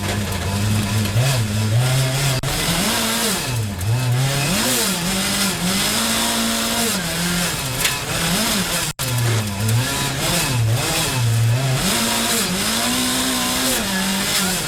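Rally car engine at full throttle on a stage, its pitch climbing and dropping again and again as it shifts through the gears. There is a brief cut in the sound about nine seconds in.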